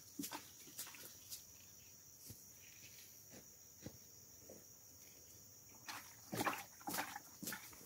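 A steady high insect drone that stops suddenly about six seconds in. Near the end come a cluster of footsteps and rustles as someone in rubber boots walks up.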